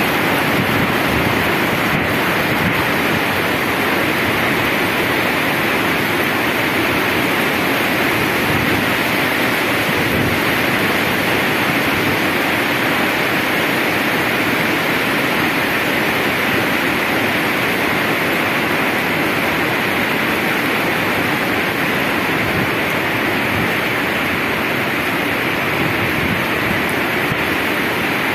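Fast, heavy rain falling on wet paving and a street, a steady even hiss with no change in strength.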